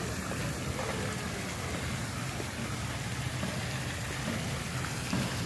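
Ornamental garden fountain's jets splashing into its pool: a steady, rain-like patter of falling water.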